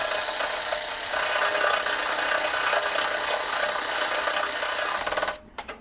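Milwaukee cordless electric ratchet running steadily as it spins a spark plug in, then cutting off abruptly about five seconds in when the plug seats.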